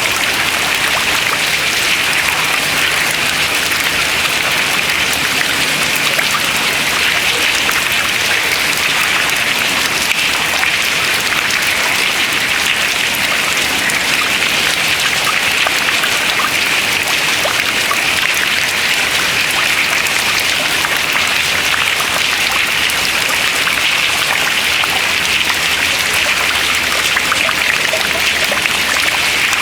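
Water dripping from ice into water below: a dense, steady patter of many drops.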